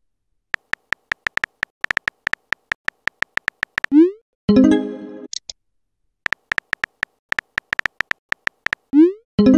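Phone on-screen keyboard typing sound effects, a rapid uneven run of clicks, each run followed by a short rising sweep and a pitched chime-like tone that fades: the text-message send and arrival effects. This happens twice, once about four seconds in and again near the end.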